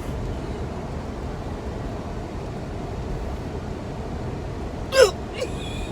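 A steady low rumble throughout. About five seconds in comes one sharp hiccup whose pitch drops, with a fainter catch just after it.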